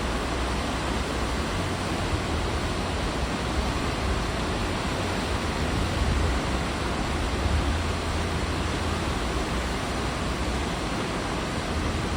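Steady rushing of sea water along the hull of a moving cruise ship, with a low rumble underneath.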